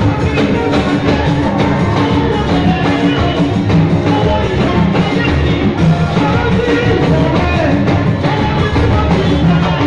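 Loud live praise music from a church band: keyboard and a steady beat with singing.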